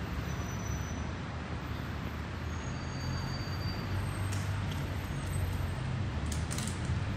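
Steady low rumble of road traffic, with a couple of faint clicks.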